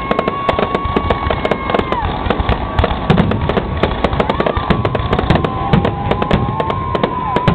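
Aerial fireworks going off in a dense barrage of sharp bangs and crackles, with a few deeper booms in the middle and long steady whistles running over them.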